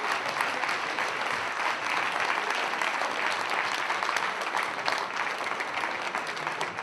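Audience applauding steadily, many hands clapping at once, easing off slightly near the end.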